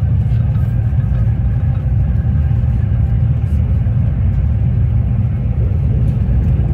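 Loud, steady low rumble of a Sapsan high-speed train heard from inside the passenger car.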